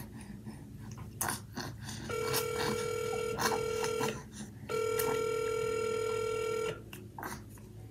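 Telephone line tone over a phone's speaker: a steady mid-pitched tone about two seconds long with one short break, then after a pause another tone about two seconds long, with a few faint clicks before.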